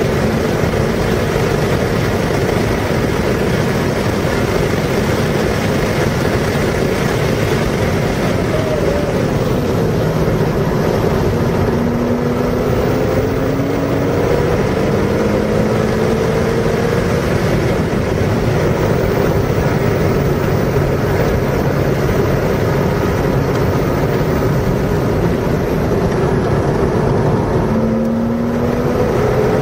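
Car engine being driven hard, its pitch climbing and dropping back several times as it revs up and shifts, over a loud, steady rush of wind and road noise.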